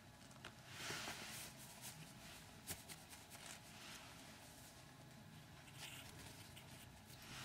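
Near silence, with faint rustling of bedding and a few soft clicks and scratches as a small puppy moves about on the fabric.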